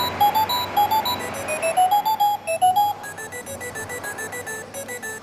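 A simple electronic melody of clear beeping tones, like an alarm clock's built-in tune. The notes climb over the first three seconds, then the tune turns quieter and repeats a quick figure of alternating notes.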